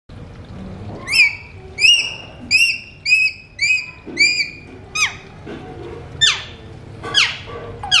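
Alexandrine parakeet whistling: a run of six short whistles, each rising and then holding, then four longer whistles that sweep steeply downward.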